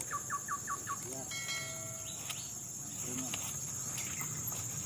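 Steady high-pitched chorus of insects such as crickets, with four quick falling chirps near the start and a brief held tone with overtones about a second and a half in.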